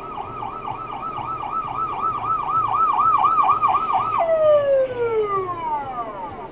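Ambulance van's siren, a fast warble of about three and a half cycles a second, growing louder as it approaches. About four seconds in, as it passes close by, the warble stops and the tone slides steadily down in pitch.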